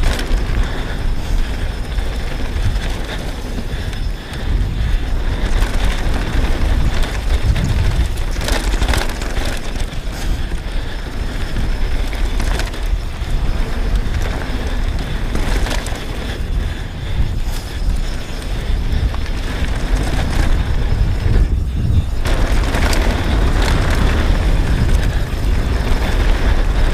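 Downhill mountain bike running fast down a dirt flow trail: wind buffeting the GoPro's microphone over the rolling tyre noise, with occasional knocks as the bike hits bumps.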